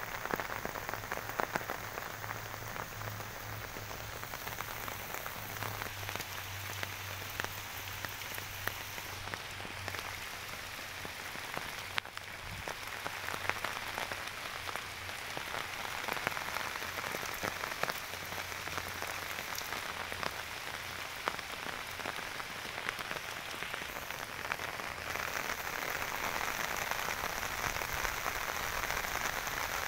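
Heavy rain falling steadily on standing floodwater and field plants: a dense hiss full of small drop patters. It grows a little louder near the end.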